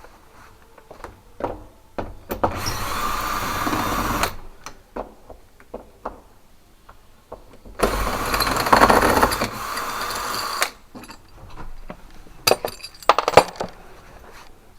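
Power drill running in two bursts, one of about a second and a half and a longer one of about three seconds, with clicks and knocks of handled metal hardware between them.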